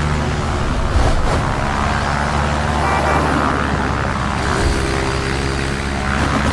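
Motion-ride film soundtrack of a fast low flight: a steady low drone with rushing whooshes of air that swell about a second in and again near the end, over held musical tones.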